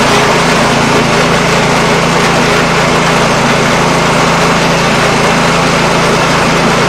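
The Ruris Expert 540 snowblower's four-stroke engine is running loudly and steadily at a constant speed. It is being warmed up before an oil change.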